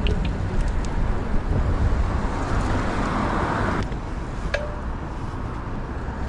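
Wind rushing over the microphone of a moving bicycle, with city street traffic around it. A broad rushing hiss builds and then drops off abruptly just before four seconds in, and a few small clicks sound along the way.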